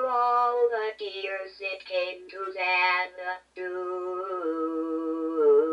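DECtalk DTC01 speech synthesizer singing in its synthetic voice: a run of quick sung syllables, then one long held note that steps down in pitch partway through.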